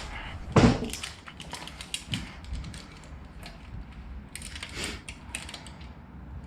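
Metal parts and hand tools being handled: one sharp knock about half a second in, then scattered light clicks and rattles.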